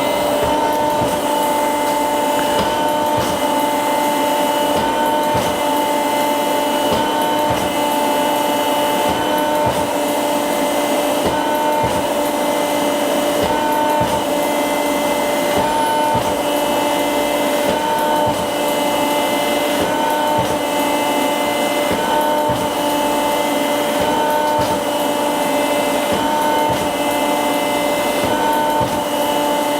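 Motorized flexion-distraction chiropractic table running, its motor humming steadily and going through a repeating cycle about every two seconds, with scattered light clicks from the table.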